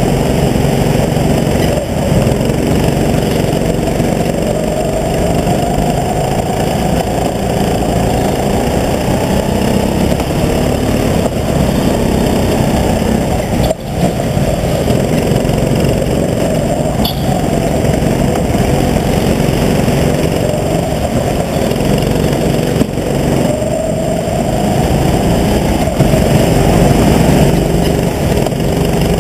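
Go-kart engine running close up, heard from the driver's seat, its pitch rising and falling over and over as the throttle is lifted and opened again through the corners.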